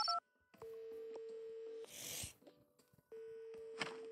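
Telephone ringback tone from a game's wall phone after a number has been dialed: two long steady beeps about a second and a half apart, with a brief hiss between them.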